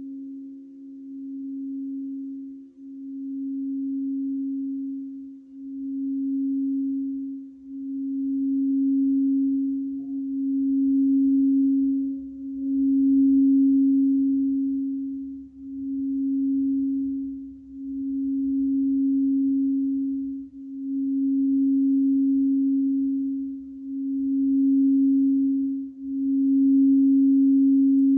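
Crystal singing bowl being rimmed, sounding one steady, nearly pure tone that swells and dips about every two and a half to three seconds, growing louder over the first half.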